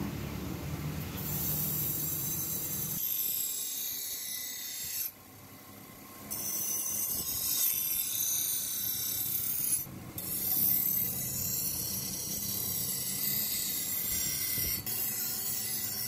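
Forged steel banana-knife blade ground against a spinning pedestal grinding wheel: a steady, hissing grind in long passes. It breaks off for about a second around five seconds in and dips briefly near ten seconds, where the blade leaves the wheel.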